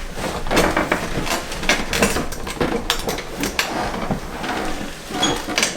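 Rustling with many small irregular knocks and creaks as a person rolls over onto his front on a padded chiropractic treatment table.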